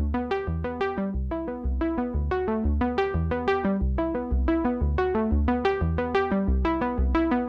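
Background music: a synthesizer or electric-piano melody of quick, evenly spaced notes over a steady bass pulse.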